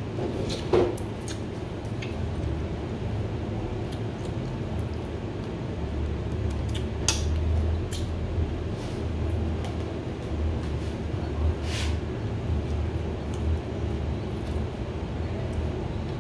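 Mealtime table noise: a few sharp clicks and clinks of dishes and utensils, about a second in, around seven seconds and near twelve seconds, over a low steady hum.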